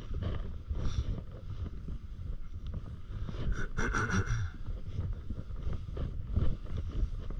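Wind rumbling against a body-worn camera's microphone while the wearer slides across snow, with irregular crunching and a brief hiss of snow about four seconds in.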